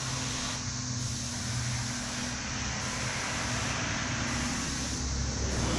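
Steady rushing air hiss over a low hum from a Cerakote spraying setup: compressed air through a spray gun, with a fan or compressor humming underneath.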